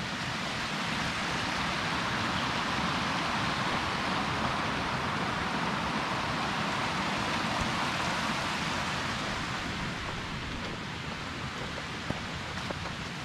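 A steady, rain-like hiss that swells a few seconds in and eases off near the end.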